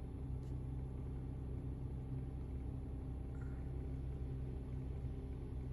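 A car running, heard from inside its cabin as a steady low rumble.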